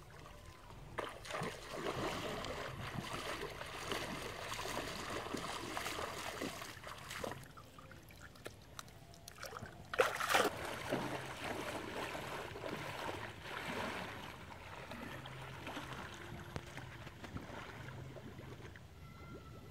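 Water splashing and trickling in an irregular run, with one louder splash about ten seconds in.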